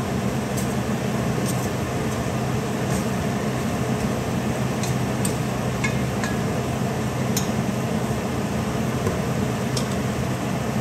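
Wooden spatula stirring beef strips in a metal pot, with several light clicks of the spatula against the pot, over a steady appliance hum.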